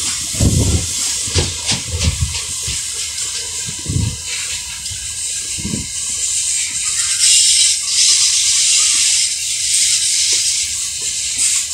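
Loaded container wagons of a freight train rolling past on the rails, a steady hiss of wheels on track that swells about two-thirds of the way through. Irregular low thuds of wind buffeting the microphone come through the first half.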